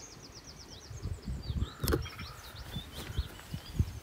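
Wild birds singing, a rapid trill and then scattered chirps, over low irregular knocks and rustles of a handheld camera being moved, with one sharp click a little under two seconds in.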